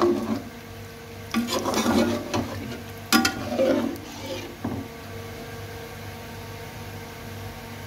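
A cooking spoon stirring a pot of vegetables in water, with several scrapes and knocks against the pot in the first half, then a quieter stretch with a steady low hum.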